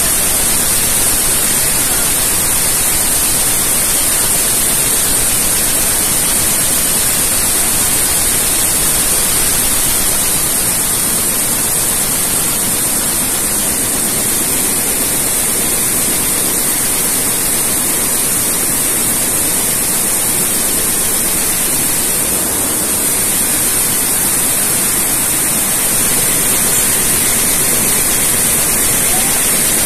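Tsudakoma weaving loom running, with its mechanical tuck-in device working at the fabric edge: a loud, steady machine noise with a strong high hiss.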